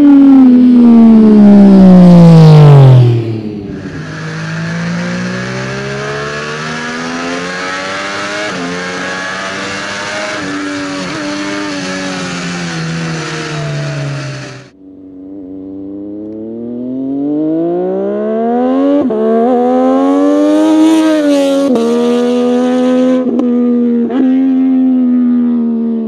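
MV Agusta F3 800's three-cylinder engine through an SC Project slip-on exhaust, ridden hard. First the bike passes close by with the pitch dropping steeply. Then comes an onboard stretch where a rush of wind covers the engine as the revs rise and fall. Finally the bike is heard from a distance, the engine note climbing and growing louder, broken by a few sharp cuts.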